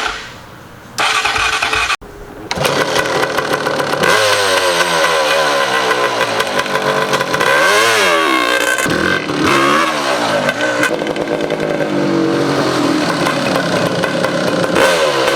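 Motorcycle engine running and being revved, with two quick rises and falls in pitch around the middle.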